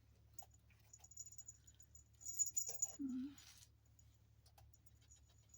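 Faint clicks and rustling of a latch hook pulling yarn pieces through rug canvas, with a short low vocal sound about three seconds in.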